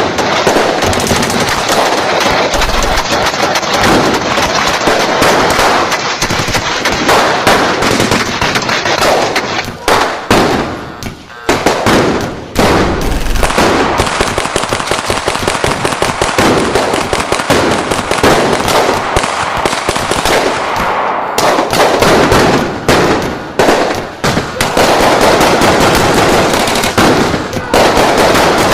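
Sustained automatic gunfire, with dense overlapping shots in rapid bursts. There are brief lulls about ten seconds in and again a little after twenty seconds.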